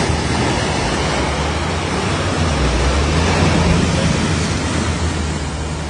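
Rushing, splashing water from an SUV ploughing through deep floodwater, its bow wave surging steadily, with the engine's low drone underneath.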